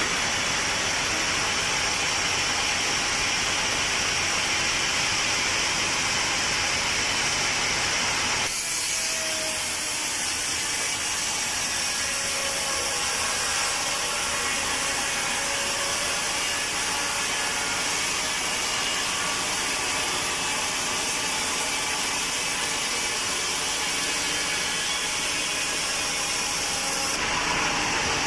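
Sawmill saw running and cutting through teak wood, a steady mechanical noise. The sound changes abruptly about eight seconds in and again near the end.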